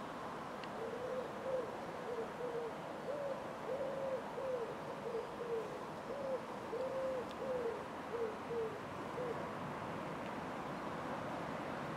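A pigeon cooing: a run of soft, rounded hoots, mostly in pairs, repeated for about eight seconds over steady background noise, then stopping.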